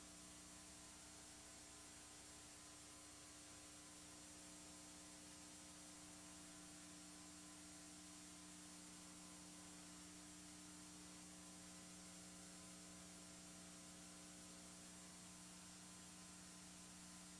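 Near silence: a faint, steady electrical mains hum with hiss, the recording's own noise floor.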